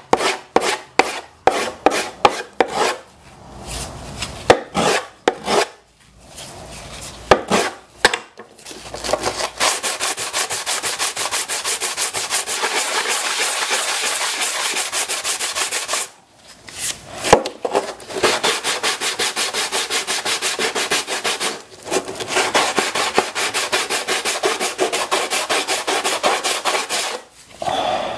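A small strip of wood rubbed back and forth by hand on a sheet of sandpaper laid flat, a rasping stroke with each pass. The strokes are slower and uneven at first, then fast and even from about ten seconds in, with a few short pauses.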